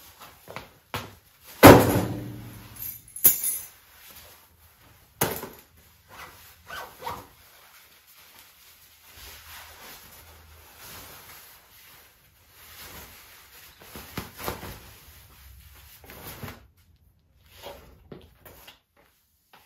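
Household objects being set down and handled. There is a loud bang with a ringing tail about two seconds in, then a few sharper knocks, then soft rustling and small knocks.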